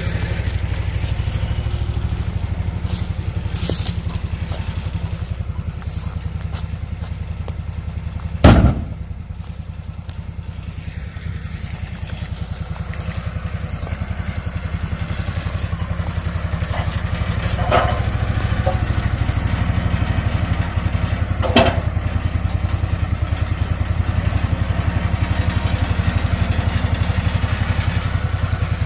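An engine running steadily at idle, with a heavy wooden thud about a third of the way in and two lighter knocks later, typical of oak posts being set down or dropped.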